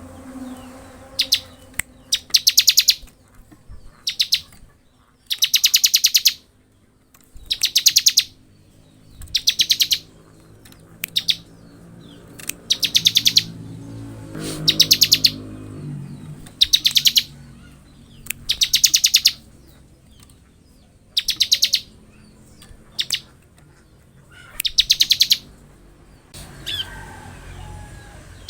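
Bar-winged prinia (ciblek) singing its 'ngebren' song: short, very rapid, buzzy high-pitched trills, each under a second, repeated about every two seconds, with a few single chirps between.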